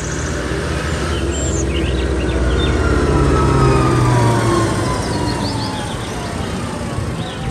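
Large farm tractor's diesel engine running as it drives past: it grows louder to a peak about halfway through, then eases off while its pitch falls slowly. Faint bird chirps sound in the background.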